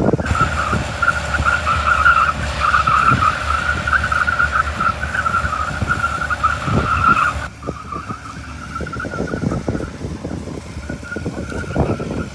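A 4x4 off-roader's engine running under hard throttle. A high, wavering whine rides over it, loudest for the first seven seconds or so and fainter after that.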